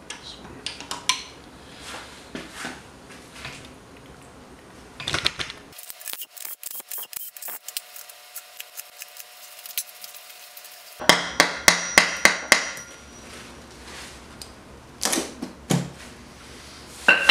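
Hand tools working on the cylinder head of a Subaru EJ255 engine. A ratchet clicks quickly as bolts are turned out, and about two-thirds of the way through comes a quick run of about eight sharp, ringing hammer taps on metal. Scattered knocks of parts and tools set down on the engine follow.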